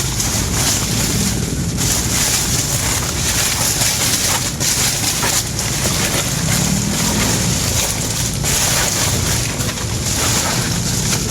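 Strong wind gusting over the microphone in a loud, continuous rush, with lake water washing against the shore.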